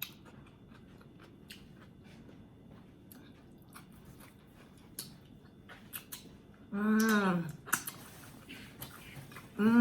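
A person chewing and eating oxtail, with small scattered wet mouth clicks. About seven seconds in comes a short hummed "mm" from the voice that falls in pitch.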